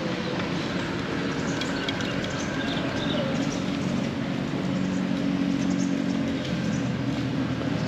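Steady outdoor motor-traffic hum, with a small motorbike engine's low drone held for a few seconds in the middle.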